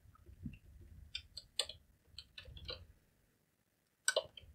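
Computer keyboard keys clicking as a line of code is typed: irregular short runs of keystrokes, with a louder cluster near the end, over a faint low rumble.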